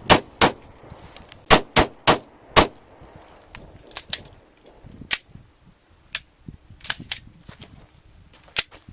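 A rapid string of gunshots, about six loud shots a few tenths of a second apart in the first three seconds, then scattered quieter sharp cracks. The quick spacing fits a semi-automatic pistol fired at a target.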